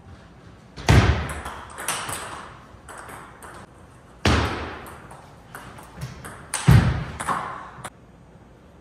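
Table tennis rally: the ball clicking off bats and table in quick exchanges, with three much louder sudden hits that echo in a large hall.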